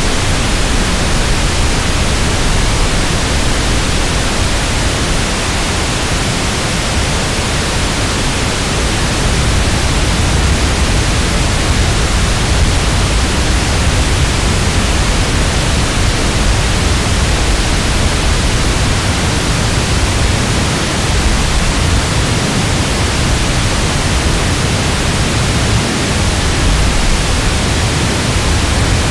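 Synthesized waterfall sound from the Korg iMS-20 synthesizer app: a steady rush of noise with a heavy low rumble, shaped to imitate a large waterfall.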